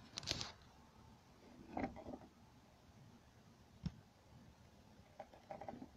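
Mostly quiet, with a few faint clicks and knocks, the sharpest about four seconds in, and brief soft sounds near two seconds and near the end.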